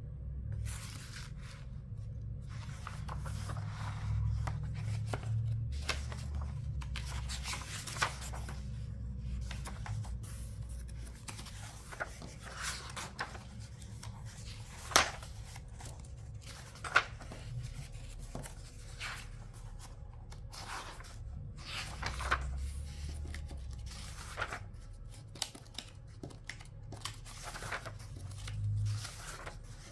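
Paper pages of a picture book being turned and smoothed flat by hand, rustling and crinkling, with a few sharp snaps along the way.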